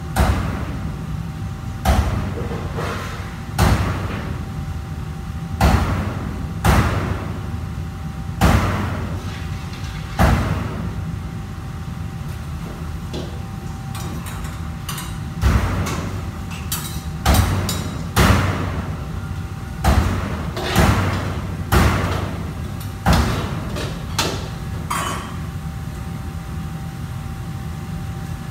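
Loud, sharp whacks of kitchen work, one to two seconds apart, with a pause of about five seconds near the middle. Under them runs the steady rumble of a commercial kitchen's extraction or burners, with a faint steady hum.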